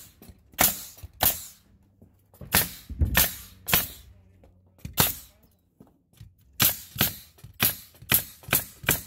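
Pneumatic coil framing nailer firing nails through tongue-and-groove plywood subflooring. There are about a dozen sharp shots at an uneven pace, several coming in quick runs, with a short pause about halfway through.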